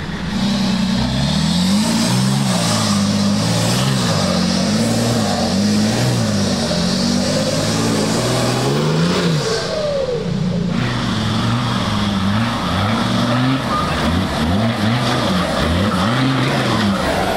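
Off-road trial vehicle's engine revved up and let back down again and again, its pitch swinging up and down repeatedly, with quicker swings toward the end.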